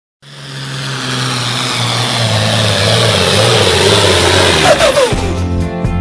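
A loud engine roar, a pulling tractor run at full throttle, building over several seconds with a falling whine near the end. Country guitar music takes over about five seconds in.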